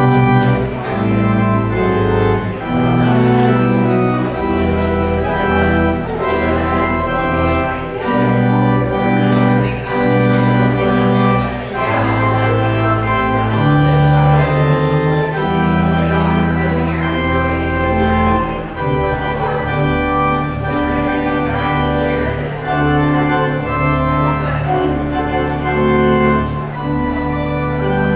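Organ playing sustained chords over a bass line that moves in steps every second or two.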